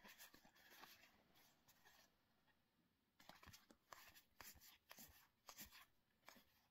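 Faint soft clicks and rustling of trading cards being handled, one slid off the next, in two runs with a short pause about two seconds in.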